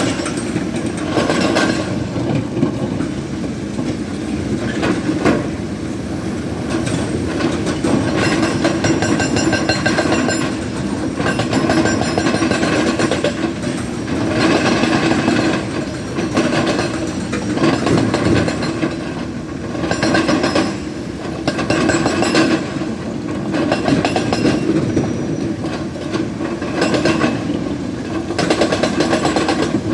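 Hydraulic rock breaker on a Tata Hitachi Zaxis 220 LC excavator hammering rock in rapid strikes. The hammering comes in spells of a few seconds with short pauses, over the excavator's diesel engine running steadily.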